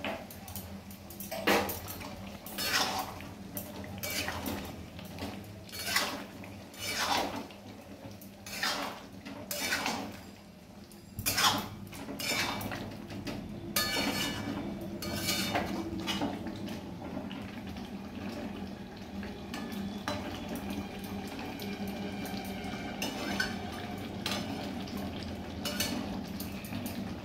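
Metal spatula scraping and clanking against a metal kadai while potatoes in gravy are stirred, about one stroke a second for the first half, then softer, steadier stirring.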